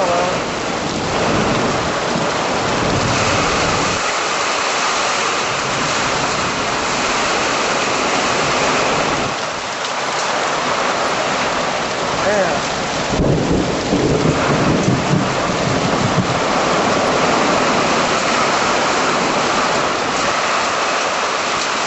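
Heavy rain pouring down hard in a severe thunderstorm, a loud steady hiss, with a low rumble of thunder rising a little past halfway through.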